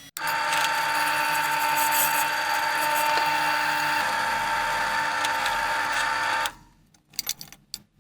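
Electric power tool motor running at steady speed with a high whine for about six seconds, then switched off and winding down, followed by a few sharp clicks.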